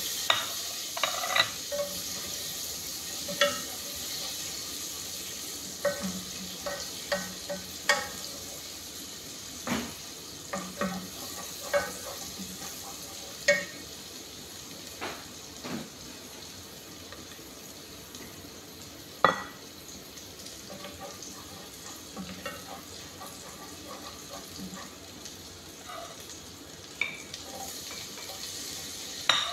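Food sizzling in a metal pot while a utensil stirs it, clinking and scraping against the pot. The knocks come thickly over the first half, then thin out to a single sharp knock about two-thirds through, over a steady sizzle.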